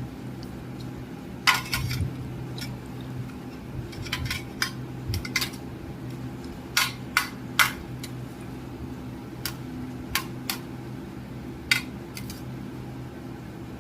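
A spoon clinking and scraping against a dish, in irregular sharp clinks, thickest in the first eight seconds and sparser near the end.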